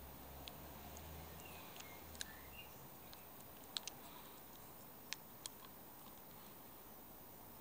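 A handful of small, sharp clicks, two of them in quick pairs, from the Daiwa Jupiter-Z 2553 fixed spool reel being handled, over faint quiet with a few short bird chirps about two seconds in.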